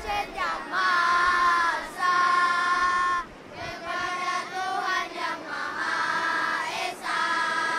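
Young voices singing a slow song in Indonesian, in long held phrases, with a short break about three seconds in.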